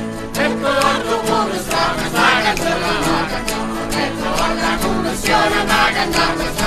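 Folk choir singing in chorus over accordion and guitar, with an even beat of percussion strokes; the voices come in just after the start.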